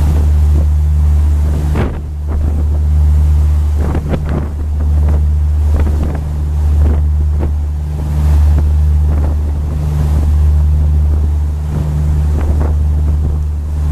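River cruise boat's engine droning low and steady, with water churning in the wake and wind gusting on the microphone.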